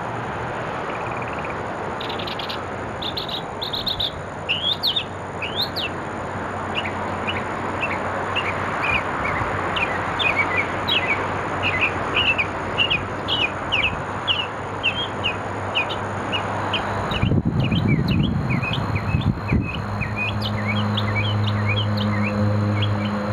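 A mockingbird singing a long, quick run of short chirping notes over a steady background noise. Near the end a low rumble passes and a steady low hum comes in.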